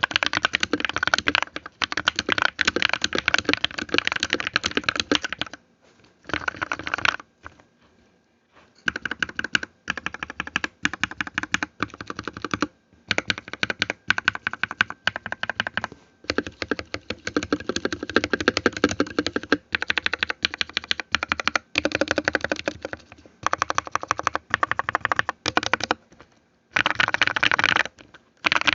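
Fast typing on a RAKK Pluma mechanical keyboard: rapid runs of key presses. There is a pause of a few seconds about six seconds in and short breaks later on.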